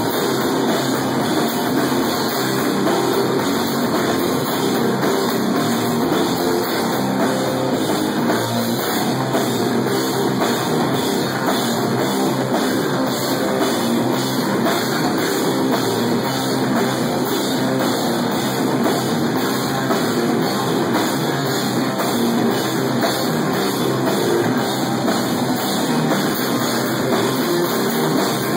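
Stoner metal band playing live without a break: a drum kit pounding under electric guitar.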